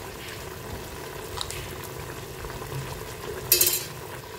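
Mutton broth bubbling steadily in an open aluminium pressure cooker on the heat, with one short sharp hiss or clatter about three and a half seconds in.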